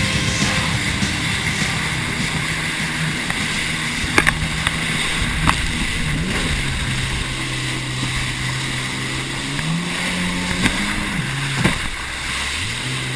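Jet ski engine running under way, its pitch stepping up and down with the throttle over a steady hiss of water and wind. A few sharp knocks come through, around four and five seconds in and near the end.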